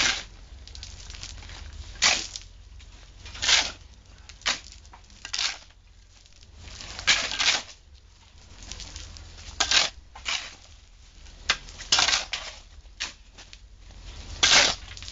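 Shovels scraping and chopping into a pile of sand and cement on the ground, turning the mix by hand to work the sand from the bottom into the cement. An irregular run of gritty scrapes, about one every second or two.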